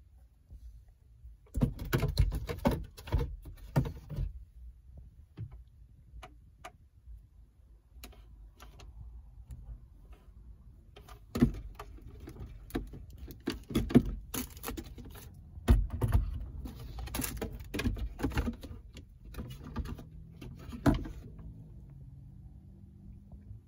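Scattered clicks, knocks and light rattles of things being handled, in a cluster about two seconds in and a longer run from about eleven to twenty-one seconds in.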